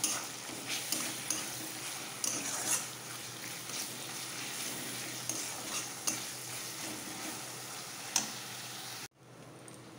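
Onions, garlic paste and ginger paste sizzling in hot oil in a metal kadhai while a steel spatula stirs and scrapes the pan in short strokes. About nine seconds in the sound drops suddenly to a quieter sizzle.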